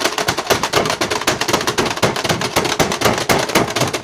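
Plastic buttons of a Pie Face Showdown game being mashed by two players, a fast, continuous clatter of clicks and knocks, many a second, as they race to swing the hand to the other side.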